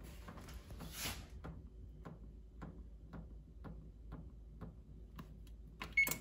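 Fingertip tapping the temperature arrow key on an electric wall oven's touchpad, a quiet click about twice a second, then a short beep near the end as the start key is pressed to begin preheating.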